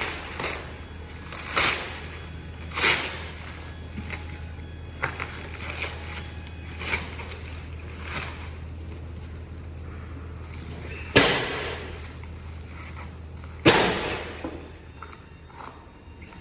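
Packaging being opened and handled: a string of short rustling and scraping noises, with two sharp knocks about eleven and thirteen seconds in, over a steady low hum.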